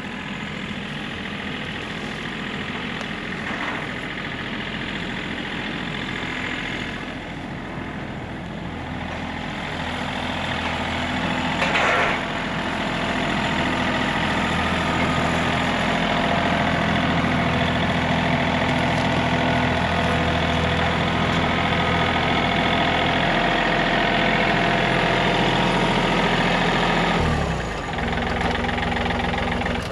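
A vehicle engine running steadily, growing louder from about ten seconds in, holding there, then easing back down near the end, with one short clank about twelve seconds in.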